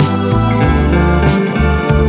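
Instrumental background music: sustained pitched notes over a bass line, with an accent about every second and a quarter.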